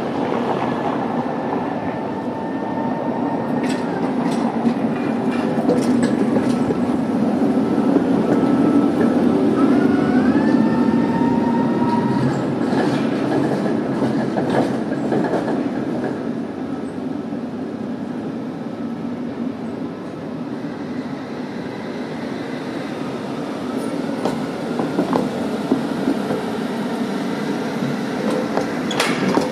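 Tatra T3 trams running slowly over street track, a steady rumble with wheels squealing in thin high tones that glide in pitch on the tight curves. Sharp clicks and clatter come at switches and rail joints, in clusters a few seconds in, in the middle, and near the end.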